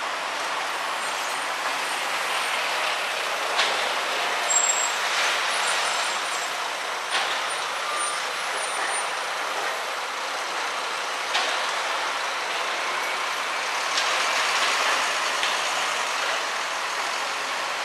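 City street traffic with buses and cars passing close by: steady engine and tyre noise, a brief high squeal about four and a half seconds in, and a few sharp knocks scattered through it.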